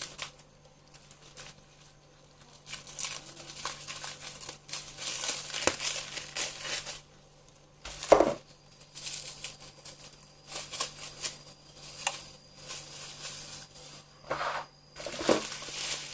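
A parcel's packaging being crumpled and torn open by hand: irregular crinkling and ripping, with one sharp knock about eight seconds in.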